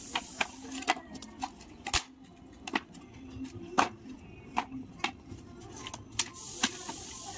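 Scrap wooden planks clattering and knocking as they are picked up, snapped and set down against bricks: a string of irregular sharp knocks.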